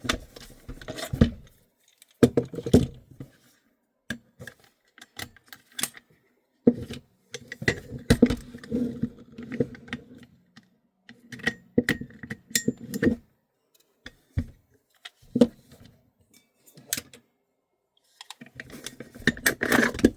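Irregular metallic clicks, knocks and rattles of airsoft gas blowback rifles being taken apart by hand, as the upper and lower receivers are separated. The handling comes in clusters, with a few quieter gaps.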